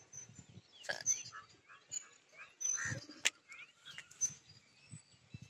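Small birds chirping and calling in short high notes throughout, with a single sharp click a little past three seconds in.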